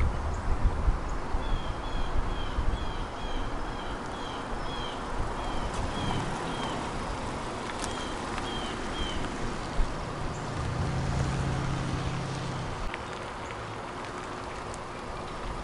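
Mazda3 hatchback driving slowly past on asphalt: a low, steady engine and tyre rumble, with a hum that grows for a couple of seconds as it passes close, about two-thirds of the way in. A bird chirps repeatedly, about two short chirps a second, through the first half.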